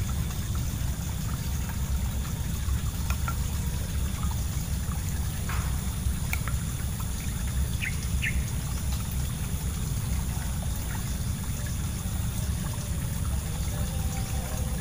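Riverbank ambience: a steady low rumble with trickling water, and a few short bird chirps about halfway through.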